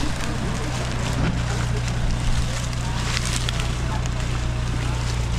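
An off-road 4x4's engine running steadily at low revs, with a few brief knocks and rattles.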